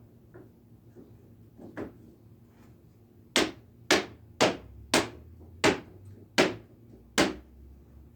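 Sharp knocks as the parts of a wall sconce are tapped together: two faint clicks, then seven loud, evenly spaced knocks about two-thirds of a second apart.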